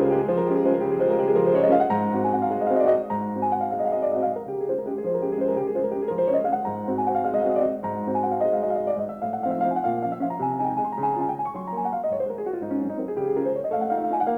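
Background piano music: a flowing melody with runs of notes rising and falling in pitch over low sustained bass notes.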